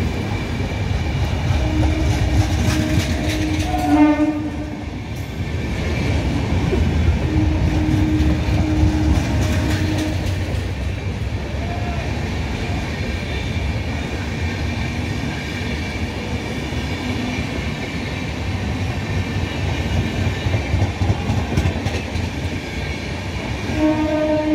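Passenger train running past along the platform: a continuous low rumble and clatter of coach wheels on the rails. A train horn sounds about two seconds in, again about seven seconds in, and once more near the end.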